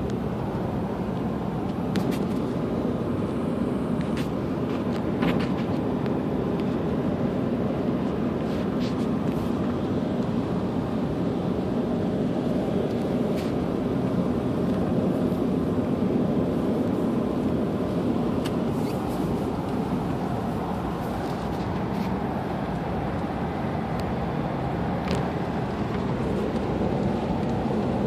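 Inside a moving car: steady engine and tyre rumble from driving on a paved road, with a few faint, scattered ticks.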